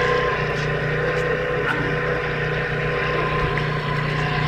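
A steady motor drone with a constant hum, not changing in pitch or loudness.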